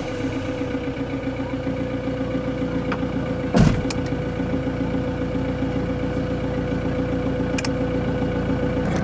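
Camper van engine idling steadily just after being started, with a single sharp knock about three and a half seconds in.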